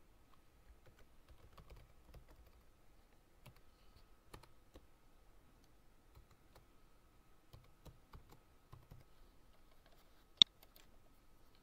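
Computer keyboard typing in faint, irregular keystrokes, then one sharp mouse click near the end, the loudest sound.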